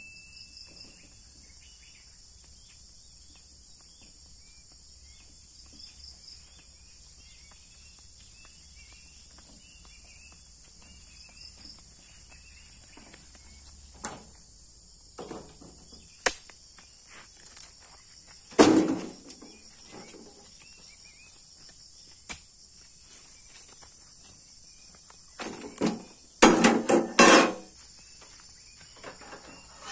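Insects chirring steadily and high, with scattered knocks and thumps: a heavier thump a little past halfway and a cluster of thumps near the end.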